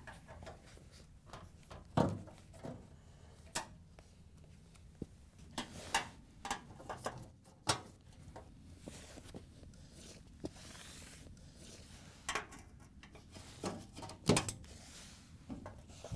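A 1/4-inch nut driver working screws out of a front-load washer's sheet-metal lower access panel, with scattered small clicks and knocks and gloved hands rubbing against the panel, including a longer scrape about ten seconds in.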